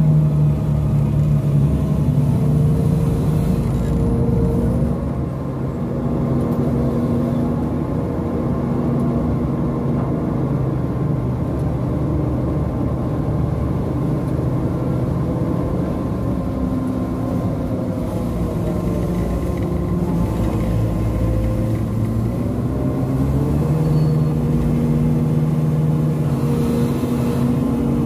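Diesel engine of a Hitachi Sumitomo crane running steadily under load as the operator works the clamshell dredging bucket, its pitch rising and falling a few times.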